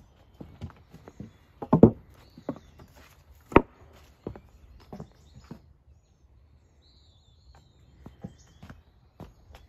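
Footsteps of a person walking through leaf litter and brush, an uneven run of steps with a few heavier thuds in the first few seconds, a pause about six seconds in, then steps again near the end.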